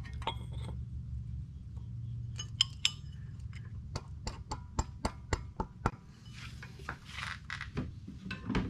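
Light metallic clicks and clinks, about a dozen in a few seconds, as a crankshaft pulley is worked onto the keyed crankshaft nose of a VW Type 1 engine by hand, over a steady low hum.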